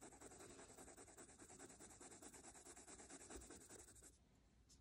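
Faint scratching of a Prismacolor coloured pencil shading on paper in quick, repeated short strokes, stopping about four seconds in.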